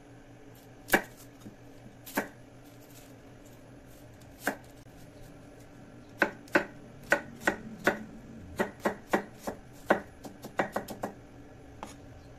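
A steel cleaver chopping a red onion on a thick round wooden chopping block. A few widely spaced knocks come first, then a quicker run of chops in the second half.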